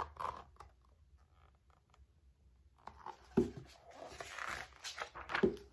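A hardcover picture book being handled and its page turned: paper rustling with a couple of soft thumps, starting after about three seconds of near quiet.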